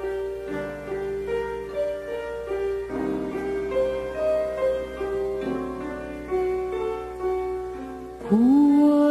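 Instrumental background music: a melody of held notes over accompaniment. Near the end a much louder held note slides up into place and holds.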